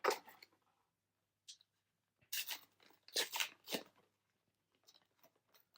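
Trading cards and their foil booster-pack wrapper being handled, giving a few short crinkling rustles, the clearest about two to four seconds in.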